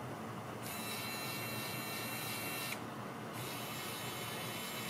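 Xiaomi Mijia electric precision screwdriver running free in gear 2, its small motor and all-metal gearbox giving a high, thin whine. It runs in two stretches of about two seconds each with a short pause between, and is not very loud.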